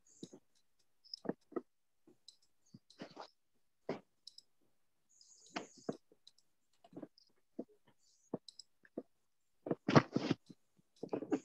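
Sporadic short clicks and small knocks from a computer mouse and desk handling, picked up by a video-call microphone, with a denser, louder cluster about ten seconds in.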